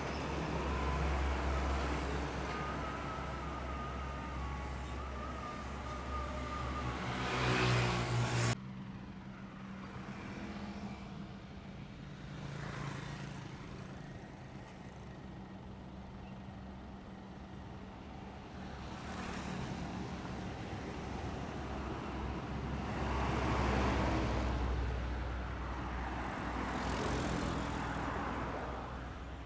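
Roadside traffic: a diesel bus engine running loud and building up, cutting off abruptly about eight seconds in, then a steady run of engines with motorcycles, cars, trucks and a bus passing one after another in several swells.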